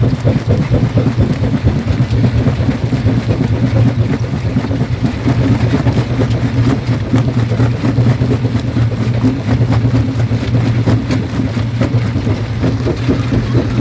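Quarry jaw crusher running under load: a steady low mechanical drone with a constant fine clatter of stone being broken.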